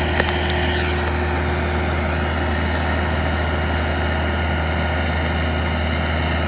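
Excavator diesel engine running steadily at constant speed, a low drone that stays at one pitch, with a short click just after the start.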